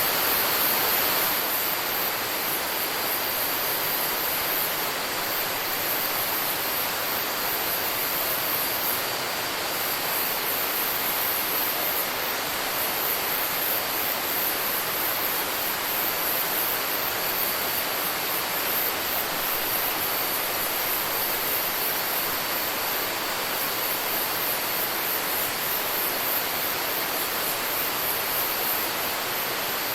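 Rainforest ambience: a steady, even rushing noise with a shrill, high chorus pulsing on top of it and a faint steady high tone.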